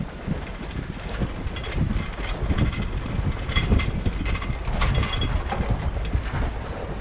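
2WD Ford Ranger pickup driving slowly over a rough, rocky dirt trail: a low rumble with constant irregular clunks and rattles from the body and suspension, and a couple of brief squeaks.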